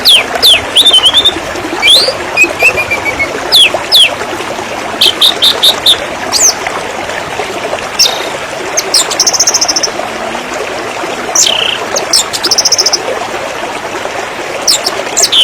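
River water flowing steadily, with birds singing over it throughout: many short sharp chirps and sweeping notes, and a fast high trill about nine seconds in and again near twelve seconds.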